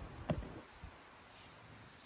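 A kitten pushing and pawing into the gap between fabric sofa pillows: a soft rustling thump about a third of a second in and a lighter one just under a second in, then faint room tone.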